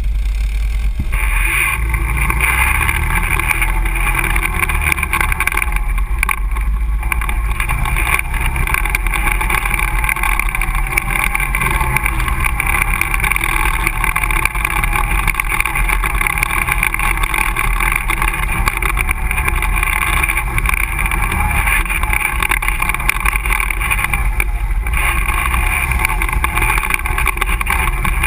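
ATV engine running under way on a dirt trail, its pitch rising and falling with the throttle. It picks up about a second in and eases off briefly near the end.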